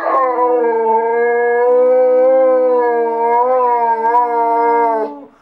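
Dog howling: one long howl held for about five seconds, wavering slightly in pitch, then fading out near the end.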